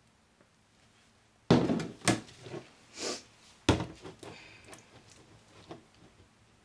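A plastic bucket set down on a tabletop with a loud thunk about a second and a half in. Then comes a second knock, a brief scrape and another sharp knock, and lighter clatter from a plastic jug and a spatula being handled.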